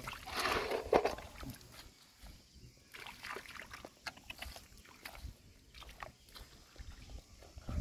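Hands splashing and groping in shallow tide-pool water to pick up clams, with small clicks as the shells are handled. A louder splash about half a second in ends in a sharp click.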